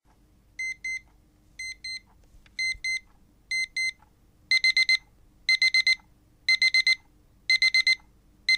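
Electronic wake-up alarm beeping high-pitched: two short beeps once a second at first, then, about halfway through, louder groups of four quick beeps each second as the alarm escalates.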